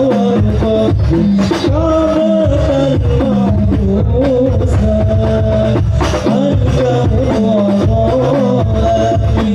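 Islamic devotional song (sholawat) in hadrah style: a male lead voice sings through a microphone and PA while a group of rebana frame drums beats a steady rhythm underneath.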